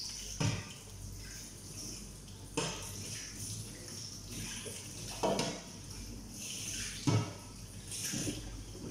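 Water running into a kitchen sink while dishes are washed, with four sharp clatters of crockery and utensils knocking against the sink.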